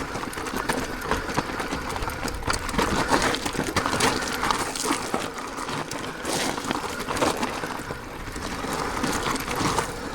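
Electric mountain bike clattering down a steep, rocky trail: a steady rattle of tyres, frame and drivetrain over stones, with many sharp knocks.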